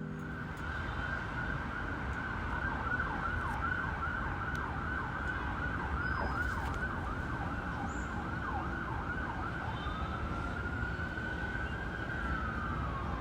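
Emergency vehicle siren in yelp mode, quick falling sweeps about two a second, changing near the end to a slower wail that rises and then falls, over a steady low rumble.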